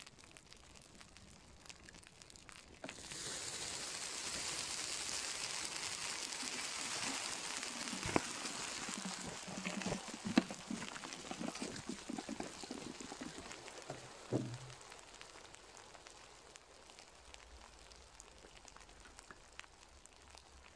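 Water sprayed onto burning mounds of matches: a steady hiss starts about three seconds in, with scattered crackles and a few sharp pops, and dies down after about fourteen seconds.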